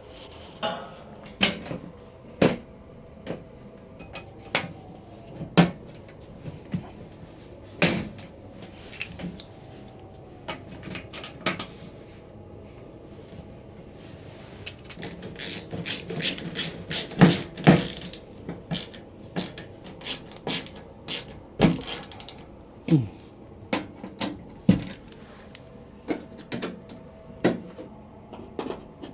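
Irregular knocks, clicks and clatter of hard objects being handled and set down, with a quick run of rattling clatter in the middle and a couple of short squeaks near the end.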